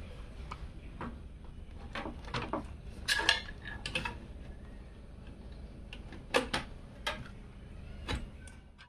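Light clicks and knocks of hard PC case parts being handled, in small clusters with pauses between. The loudest come a little after three seconds and again past six seconds.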